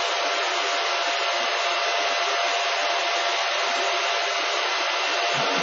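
Cooling fans of a Silver Fish 28MH Litecoin mining machine running at full speed: a steady rush of air with a faint steady whine at a few pitches, around 65 dB on a noise meter.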